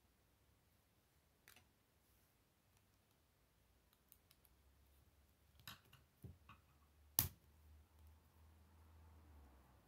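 Plastic K'nex rods and connectors clicking as they are snapped together by hand: a few scattered sharp clicks, the loudest about seven seconds in, over faint room tone.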